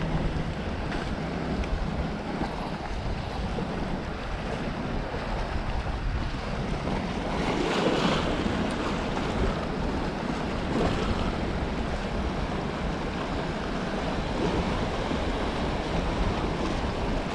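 Surf washing and breaking against jetty boulders, a steady rushing wash with one louder surge about halfway through, under wind buffeting the microphone.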